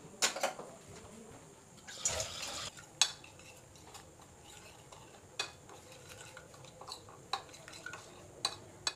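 A metal spoon stirring yogurt and ground spices into a paste on a ceramic plate, with scattered sharp clinks of the spoon against the plate and a brief scrape about two seconds in.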